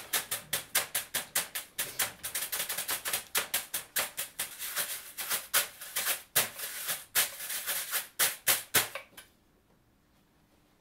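Washboard tapped and scraped with metal thimbles, a quick, uneven clatter of sharp clicks several times a second that stops about nine seconds in.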